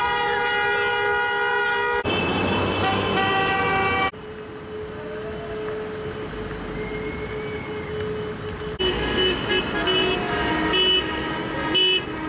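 Car horns honking in street celebration. Long held blasts come first, then a fainter steady horn over traffic noise, then a string of short honks starting about nine seconds in.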